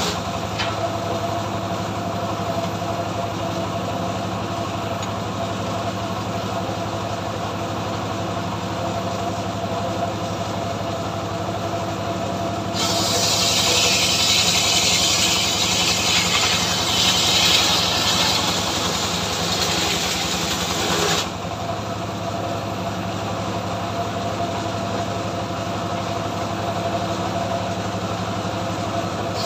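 Engine of a homemade trailer-mounted circular sawmill running steadily. About a third of the way in, the blade cuts into a log with a loud high rasp for about eight seconds; the rasp stops suddenly and the engine runs on alone.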